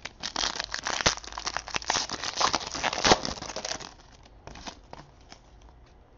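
Foil wrapper of a trading card pack crinkling and tearing as it is ripped open, for about four seconds, then a few light ticks as the cards are handled.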